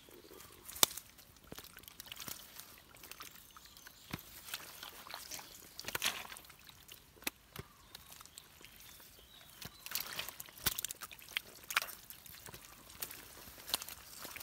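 Hands working in shallow mud and water, sloshing and squelching, with fish splashing in the muddy puddle. Sharp wet splashes and clicks come irregularly, the sharpest about a second in.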